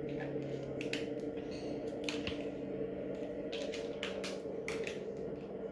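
Motorcycle engine from a riding video, heard through a TV's speakers, droning at a steady pitch, with a scatter of sharp clicks.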